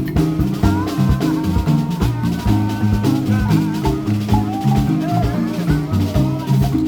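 Background music with a steady beat, a pulsing bass line and a melody line over it.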